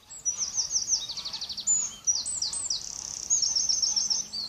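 A songbird singing a loud, fast song of high, quickly repeated notes and trills, in several phrases with brief breaks.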